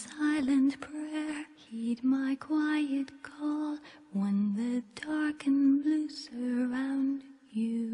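A woman singing a song, her melody moving through a string of short held notes.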